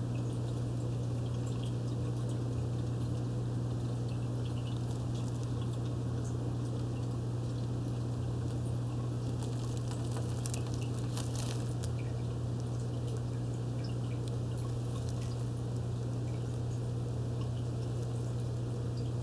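Turtle aquarium's filter running: a steady low hum with water trickling and dripping, and scattered small clicks and splashes.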